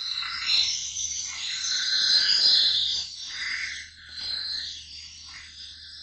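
A steel knife blade being ground on a motor-driven sharpening wheel: a hissy, high scraping that swells and fades with each pass of the edge, louder in the first half, over a steady low motor hum.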